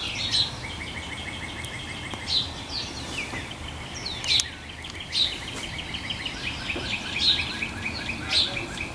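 Songbirds singing: several rapid trills of evenly repeated notes and short, sharp down-slurred chirps recurring every second or two, over a low steady background rumble.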